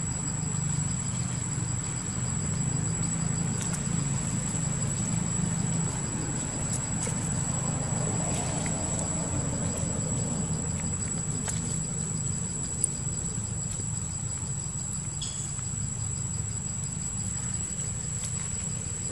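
Insects droning in the forest with one steady high-pitched tone, over a constant low rumble. There are a few faint clicks and one sharp click about two-thirds of the way through.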